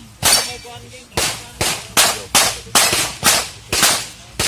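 Rapid pistol fire from a Glock: one shot, a short pause, then a steady string of about nine shots at roughly three a second, each with a brief echo.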